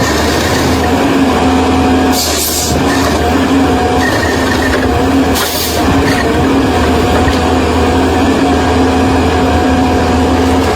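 Heavy diesel engine of a bulldozer running steadily at a constant pitch. Short bursts of hiss come twice, about two and five and a half seconds in.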